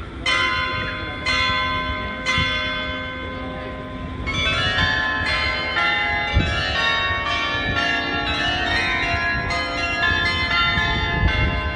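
Church bells ringing: three single strokes about a second apart, then many bells pealing in quick succession from about four seconds in.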